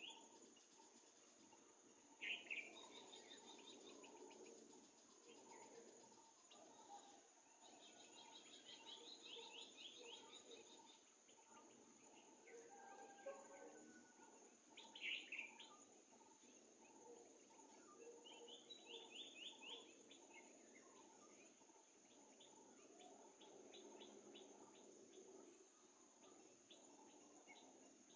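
Faint forest birdsong: several birds give short runs of rapid chirps, with a brief whistled note about halfway through. Under them lies a steady high hiss of background ambience.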